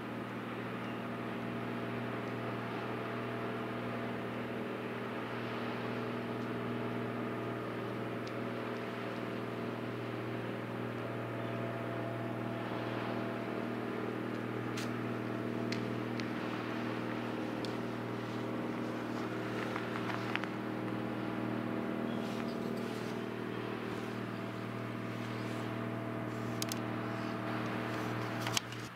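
Steady mechanical drone, an engine-like hum made of several steady tones, with a few faint clicks in its second half. It stops just before the end.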